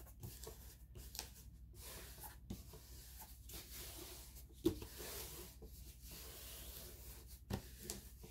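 Hands rubbing and smoothing the back of a diamond painting canvas, its plastic cover film crinkling with little snapping and crackling as trapped air bubbles are released. The sharpest snap comes about halfway through, and another comes near the end.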